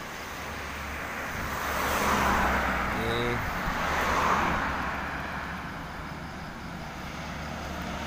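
Road traffic: two vehicles pass close by, their tyre and engine noise swelling and fading about two and four seconds in, over a steady low rumble. A brief tone sounds for a moment about three seconds in.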